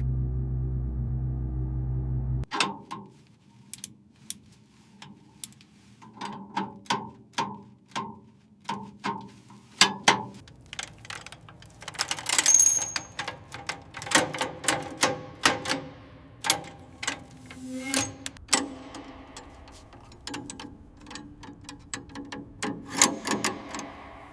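A steady low hum that cuts off about two and a half seconds in, then an irregular run of sharp metal clicks, taps and clanks from hand tools working on metal, some with a brief ringing.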